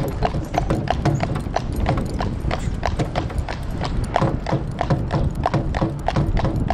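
Hoofbeats of a draft horse clip-clopping at a brisk, even pace, several strikes a second, over a steady low rumble.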